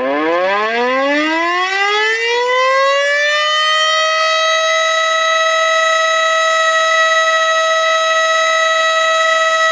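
Tornado warning siren winding up: its pitch rises steadily for about the first three seconds, then holds one loud, steady tone.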